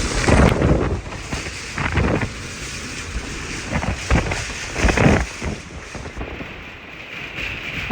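Hurricane-force wind gusting hard and buffeting the microphone, with a low rumble and hiss that surge several times, strongest about half a second in and around five seconds in.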